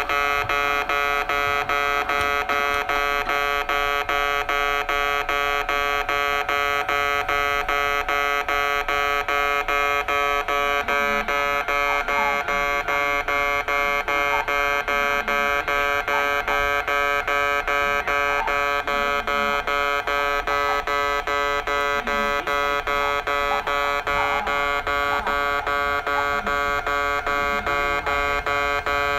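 Railway level-crossing warning bell ringing loudly in a rapid, even repeat that does not change.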